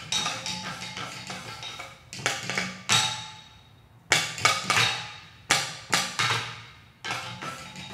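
Hand-thrown ceramic percussion instruments, clay pots and a large clay vessel, struck in a rhythmic ensemble pattern with paddles and sticks, each stroke ringing briefly with a clear pitch. The playing thins to a short lull a little past three seconds in, then resumes with loud strokes.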